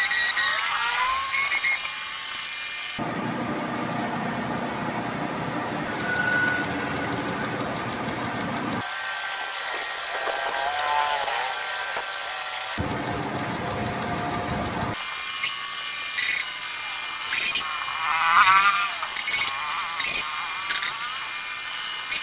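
Metal lathe machining steel, heard as a run of short edited clips that cut abruptly from one to the next, each with a different steady running noise. In the later clips there are many sharp clicks and ticks from the cutting.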